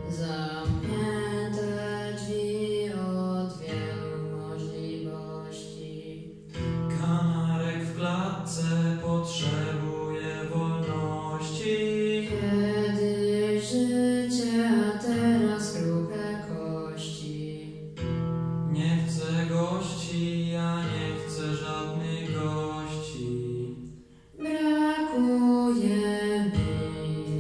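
A boys' vocal duet singing a pop song into microphones over an instrumental backing track, with brief breaks between phrases about six seconds in and near the end.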